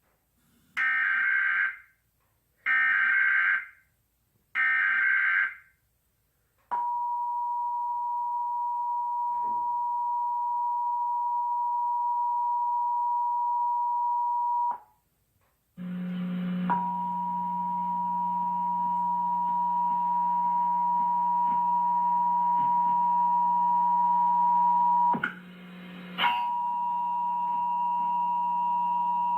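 Emergency Alert System test signal: three short bursts of SAME header data tones, then the two-tone EAS attention signal (853 and 960 Hz) held steady for about eight seconds. After a one-second gap the attention tone starts again, this time with a low hum beneath it, and drops out briefly near the end.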